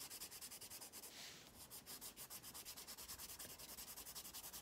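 Graphite pencil scratching on sketchbook paper in quick back-and-forth shading strokes, about eight a second and faint, pressed hard to build up dark tone.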